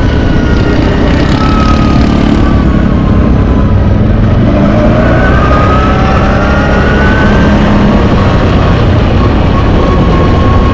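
CFmoto X8 ATV engine running while riding, heard from the rider's seat over a dense low rumble, its pitch rising and falling gently with the throttle.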